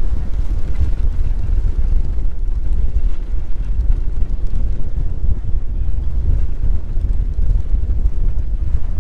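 Wind buffeting the GoPro's microphone on a sailboat's stern rail under sail: a loud, constant low rumble that flutters and gusts.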